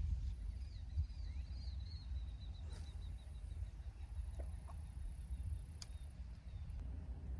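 A bird singing: a few high warbled notes, then a fast trill of repeated notes that fades out after about six seconds, over a steady low wind rumble on the microphone.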